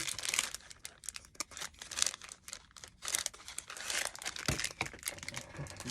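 Irregular crinkling and rustling with light clicks and knocks as small wooden craft planks are picked up and handled on a work surface.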